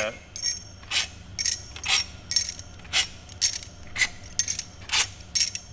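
Hand tools working on a bare Audi 3.0T V6 engine block: sharp metallic clinks, each with a short ring, about two a second at a steady pace.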